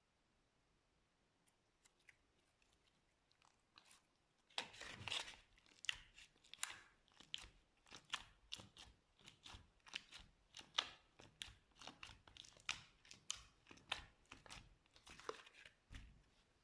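Brown slime being squeezed and pressed by hand. A burst of wet, sticky crackling begins about four and a half seconds in, then gives way to a regular run of sharp crackles and pops, roughly one every half second, as air pockets in the slime burst.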